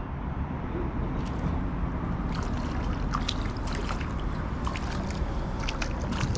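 Hooked fish thrashing at the surface beside a small aluminium boat: water splashing and sloshing in quick irregular crackles that grow busier from about two seconds in, over a steady low background rumble.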